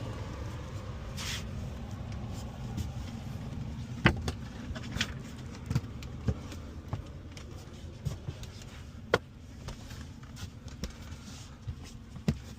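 Steady low rumble with scattered sharp knocks and clicks a second or more apart, the loudest about four seconds in: people moving about and handling gear.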